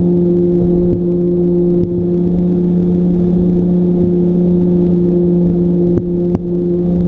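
Radio-controlled plane's motor and propeller running at a steady pitch, heard from on board the plane, with two short dips about six seconds in.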